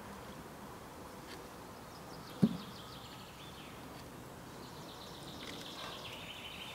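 Outdoor background noise with faint, scattered bird chirps that grow a little busier near the end, and a single sharp low thump about two and a half seconds in.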